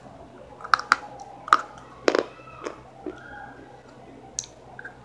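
Crunchy bites into a fired-clay (terracotta) cup: about six sharp cracks and crunches at uneven intervals, the loudest within the first two seconds.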